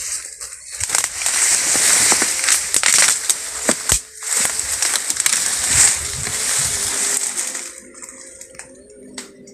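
Rustling and crunching of tall grass and leafy undergrowth being pushed through and trodden on, with many sharp snaps of stems and leaves, dying down near the end.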